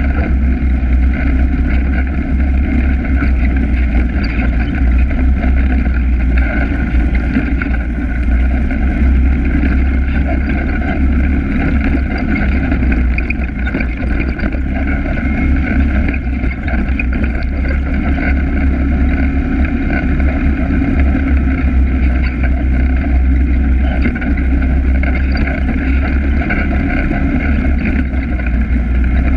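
ATV engine running steadily while the quad rides along at trail speed: a loud, even drone.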